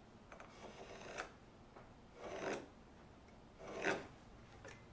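A marking tool scratching a layout line across a wooden board, drawn along the steel blade of a combination square. There are about three faint scraping strokes, the longest in the first second.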